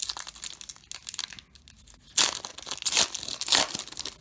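Foil wrapper of a baseball card pack being torn open and crinkled in the hands, a crackly rustling in uneven bursts that grows louder about halfway through.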